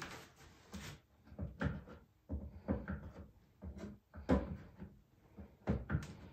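Mallet tapping the finger joints of a wooden beehive box together: a series of uneven wooden knocks, some singly, some in quick pairs.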